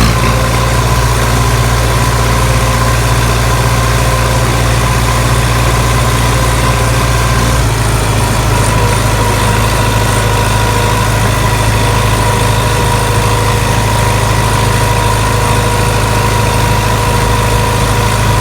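Farm tractor engine running steadily, its note shifting slightly about eight seconds in.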